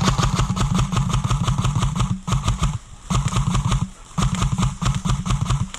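Airsoft electric gun firing on full auto: a rapid, even rattle of shots over the gearbox's buzz. It comes in four bursts, a long first one of about two seconds, then three shorter ones with brief pauses between.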